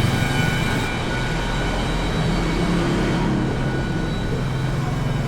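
Street traffic: a vehicle engine running steadily, with a thin high whine that fades out about three seconds in.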